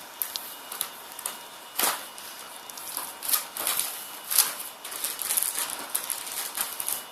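Cardboard and plastic toy packaging being handled and pulled apart: irregular rustling, crinkling and clicking, with a few louder crackles about two, three and a half and four and a half seconds in.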